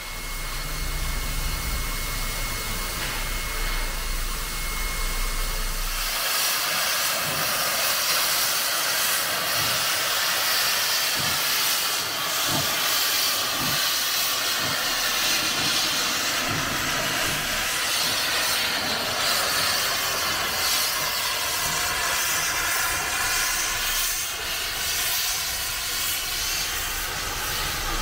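NSWGR 59 class steam locomotive 5917 letting off steam: a low rumble at first, then a loud, steady hiss of steam that starts suddenly about six seconds in.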